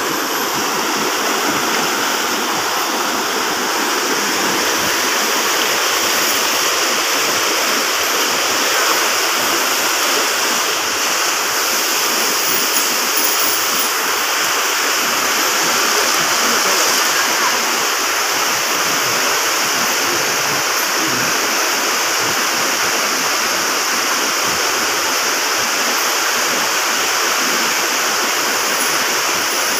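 River water rushing steadily over rocks and through rapids.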